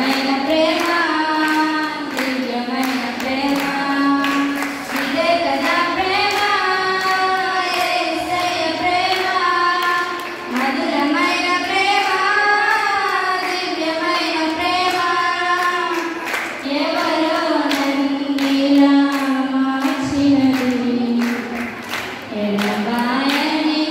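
Three young women singing together into handheld microphones, amplified through a PA loudspeaker: a slow melody with long held notes that rise and fall.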